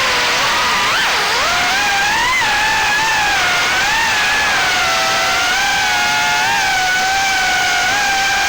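Small 3-inch FPV quadcopter's four brushless motors (GEPRC 1206 4500kv) and props whining in flight over a steady hiss of prop wash. The pitch dips sharply about a second in, climbs again, then wavers up and down with the throttle.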